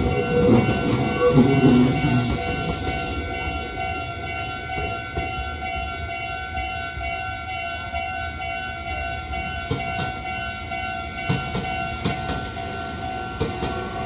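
Japanese level-crossing alarm ringing steadily with several high tones at once. A Meitetsu train rumbles across and fades away over the first few seconds. From about ten seconds in come the clicks of a second train's wheels over the rail joints as it approaches on the far track.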